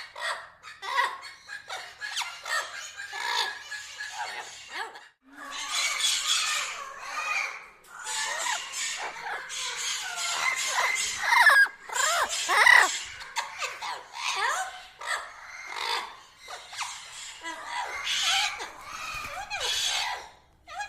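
Parrots chattering and squawking without a break, harsh screeches mixed with quick rising and falling whistled notes; the loudest calls come a little past the middle.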